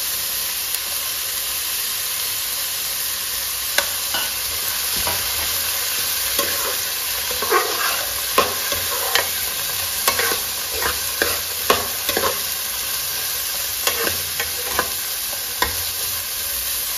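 Diced potatoes, carrots and French beans sizzling in hot oil in a metal kadai, with a steady hiss. A metal spatula stirring them scrapes and knocks against the pan, the knocks coming irregularly from about four seconds in.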